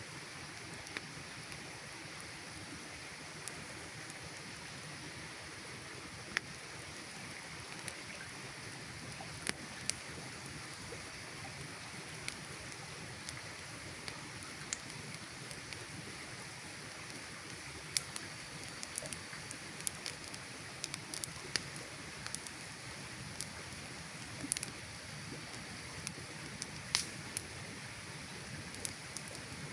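Campfire burning: a steady hiss with scattered sharp crackles and pops, which come more often in the second half.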